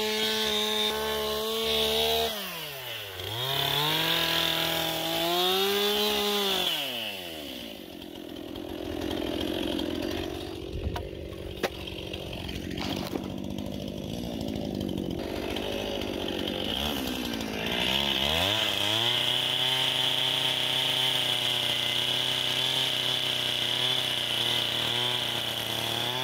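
A small petrol engine on a power tool revving up and dropping back several times. In the middle it runs lower and rougher with a few sharp clicks, then holds a steady speed until it drops off near the end.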